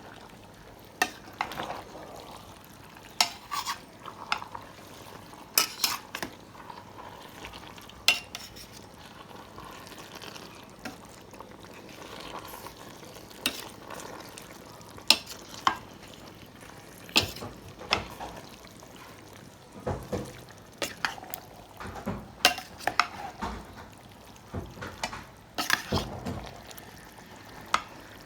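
A cooking utensil stirring food in a pot, scraping and clanking against the pot at irregular intervals.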